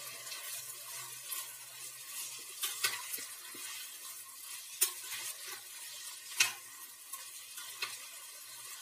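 A metal spatula stirring bean sprouts and long beans in a stainless steel pot, scraping and clicking against the pot a few times, over a steady faint sizzle of the cooking vegetables.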